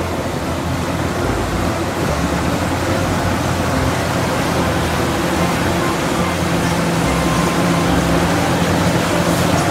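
Steady diesel engine noise of a Caterpillar 6015B hydraulic mining excavator working under load as it loads a dump truck, a continuous low drone with a slightly higher hum in the second half.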